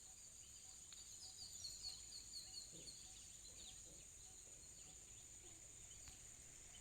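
Faint insects trilling in a steady high drone, with birds chirping over it, including a quick run of repeated short notes a little over a second in.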